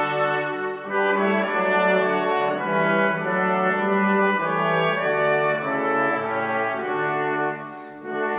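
A brass ensemble plays a slow piece in sustained chords that change about once a second, over a bass line that steps downward. The playing pauses briefly near the end, as if for a breath between phrases.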